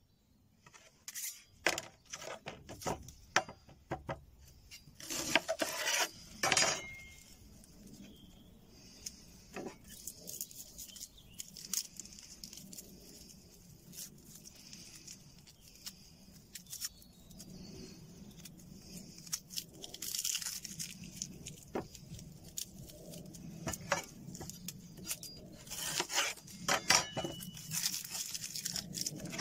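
A red onion being peeled by hand on a wooden chopping board: crackling of the dry skin with scattered sharp taps and clicks. The clicks bunch up and are loudest a few seconds in and again near the end.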